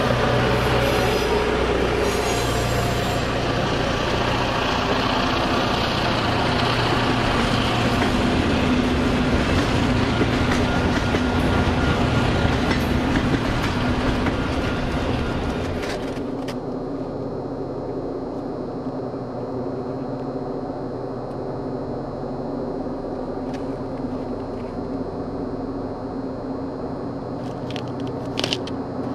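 Freight train hauled by EMD GP38-2 diesel locomotives working at full throttle (notch 8). A loud, close rumble of the passing train drops about halfway through to a quieter, steady engine drone, and a few sharp clicks come near the end.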